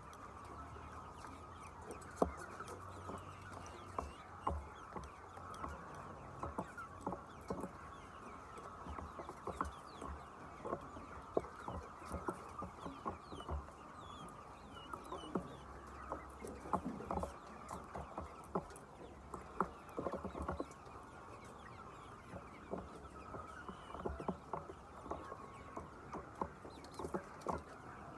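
Chickens clucking, with irregular sharp taps and clicks.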